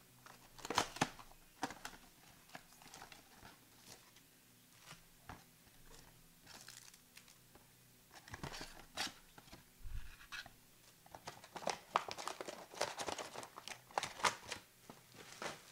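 A trading-card Mega Box being opened by hand: plastic wrapping tearing and crinkling, with scattered crackles and light taps in uneven spurts, busiest near the end.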